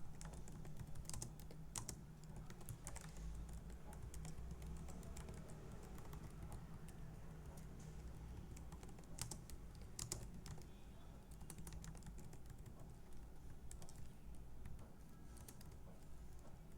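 Typing on a computer keyboard: irregular clicks of keystrokes in short runs, over a faint steady low hum.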